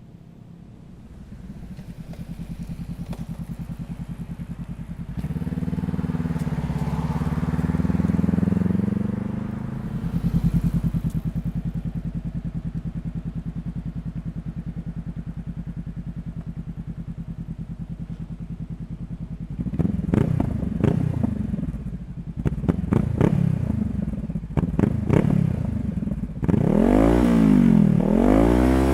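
Honda CBR500R parallel-twin engine through a Leo Vince GP Corsa exhaust with no dB killer. It comes up to a steady idle with a rising-and-falling engine note along the way, then gives a run of short, sharp throttle blips from about two-thirds in, ending with two long revs up and back down.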